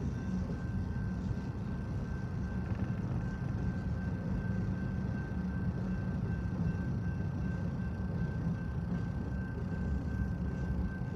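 Freight cars rolling past at a grade crossing: a steady low rumble of wheels on rail, with a thin, steady high-pitched tone over it.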